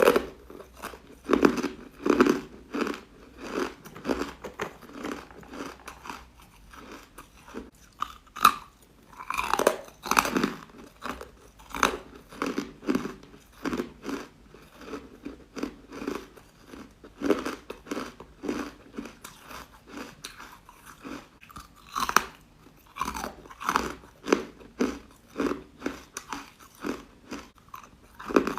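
A person biting and chewing chalky, powdery, crunchy white ice (carbonated ice bites) in a steady run of crunches, about two a second. Several bites ring out louder than the rest.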